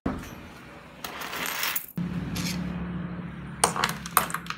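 A bunch of metal keys jingling as it is picked up off a wooden desktop, with sharp metallic clinks near the end.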